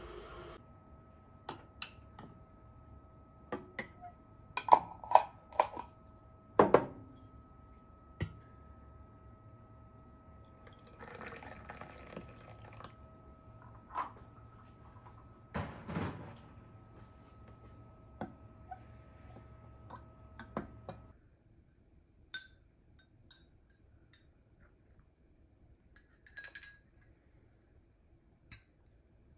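Kitchen sounds of drink-making: a metal spoon clinking against a glass in a metal holder, a few sharp knocks of bottle and jar on the counter, and a pour from a plastic bottle into the glass about 11 seconds in. After about 21 seconds only faint taps remain.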